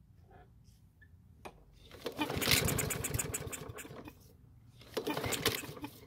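Walk-behind lawn mower's small engine, primed with gasoline sprayed into the carburetor, is pull-started: it fires and runs raggedly for about two seconds, fades and dies, then fires briefly once more near the end. This is not the most confident start, a start that lives only on the sprayed fuel, which the owner takes to point to a clogged carburetor main jet or water in the fuel bowl.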